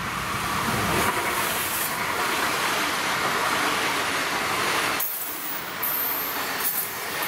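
ICE high-speed electric train passing at speed: a loud, steady rush of wheels and air that builds over the first second and holds, thinning about five seconds in as the cars go by.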